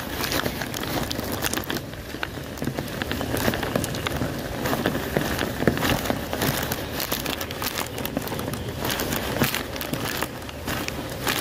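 Steady rain falling, with many sharp clicks of drops.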